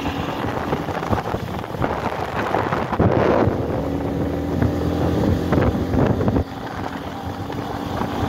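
Minsk X250 enduro motorcycle's single-cylinder engine running while riding, its note swelling and easing with the throttle, with wind buffeting the microphone. The engine sound drops back about six seconds in.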